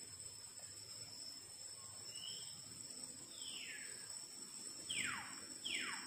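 Steady high drone of insects at two pitches, with a bird giving a series of falling whistles from about two seconds in; the last two whistles, near the end, are the loudest and sweep steeply down.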